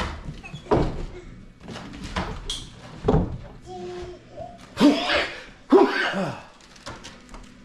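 Several dull thumps and knocks, the loudest about three seconds in, with short voice sounds between them from about four seconds on.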